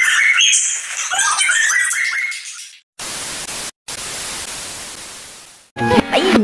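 High-pitched shouting voices fade out. Then comes about three seconds of TV static hiss, broken once by a brief cut and fading away, before music starts near the end.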